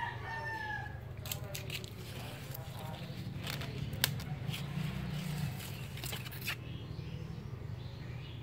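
A rooster crowing, its call falling away about a second in. Then scattered sharp clicks and rustles as hands handle potted plants and their leaves.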